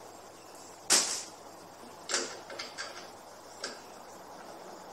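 Parts of a lawn mower handle being fitted together by hand: one sharp snap about a second in, then a quick run of smaller clicks and one more click a little later.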